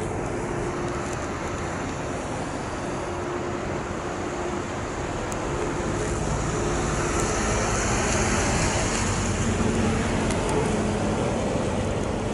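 De Havilland Canada Dash 8-200 turboprop engines running, a steady drone with a faint hum that grows louder about six seconds in.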